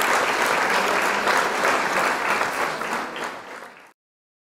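A crowd applauding, a dense patter of many hands clapping, which fades away and stops about four seconds in.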